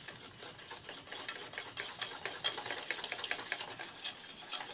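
Wire whisk stirring strawberry coulis into thick custard in a stainless steel saucepan: a fast, continuous run of light clicks and scrapes of the wires against the metal.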